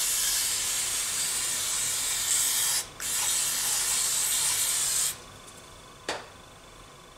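Two long hissing bursts of pressurised spray, about three seconds and two seconds long with a brief break between them, then a single short click about six seconds in.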